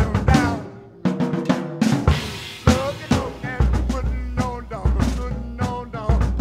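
Instrumental passage of a rock-and-roll song between sung verses: drum kit with snare and bass drum over bass and other instruments, with a short drop in level about a second in.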